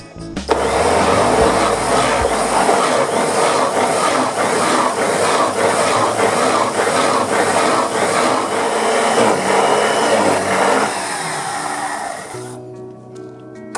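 Electric woodworking power tool running loudly over background music; it starts about half a second in and dies away near the end.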